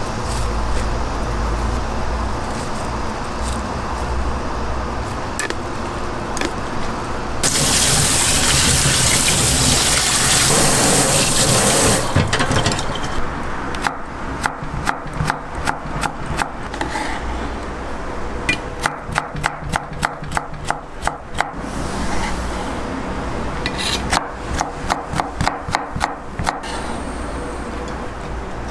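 Water bubbling in a small saucepan as enoki mushrooms are dropped in, then a loud hiss of running or pouring water for about four seconds. After that a knife chops red bell pepper on a wooden cutting board: sharp taps coming in quick runs of about five a second.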